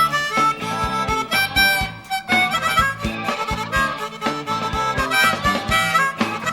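Live band playing an instrumental break: a melodic lead line over guitar and a steady drum beat.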